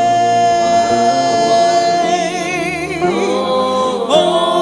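Gospel worship singing: a voice holds one long note, wavering with vibrato, over steady accompaniment, then moves on to new notes about three seconds in.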